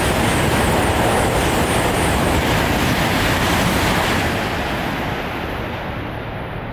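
Coupled E5 and E6 series Shinkansen passing through a station at about 300 km/h: a loud rushing noise of air and wheels on rail that starts fading about four seconds in as the tail end goes by.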